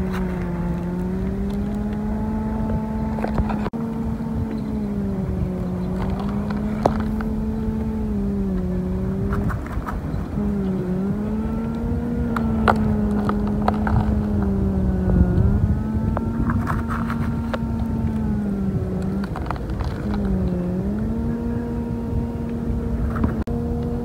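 Small electric motor of a toy excavator whining steadily, its pitch sagging briefly every few seconds as it takes load, with scattered sharp clicks of gravel and stones.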